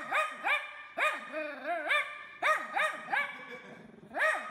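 Dog barking in a quick series of short high-pitched yips, each rising and falling in pitch, with one longer wavering call about a second and a half in and a short pause before the last yips.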